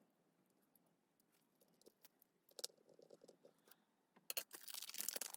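Faint clicks and taps of small smartphone parts being handled and fitted during reassembly, with a louder scratchy rustle and a run of clicks near the end.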